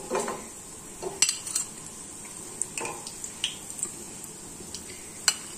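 Chicken cheese mashed potato snacks frying in shallow oil in a pan, a faint steady sizzle, with a few sharp clinks of a metal utensil against the pan as they are turned and lifted out.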